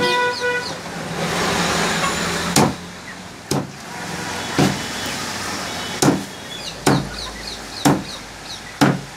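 A cleaver chopping chicken on a wooden chopping block: sharp chops roughly once a second from about two and a half seconds in. Before the chops, a held tone cuts off just under a second in, followed by a rushing noise.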